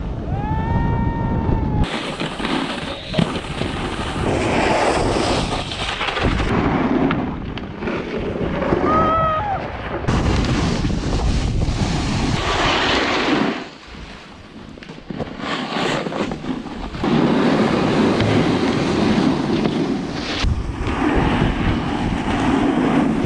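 Snowboard sliding and scraping over hard-packed snow with wind buffeting the microphone, changing abruptly several times as clips cut. A brief high-pitched call rises and falls near the start, and another comes about 9 seconds in.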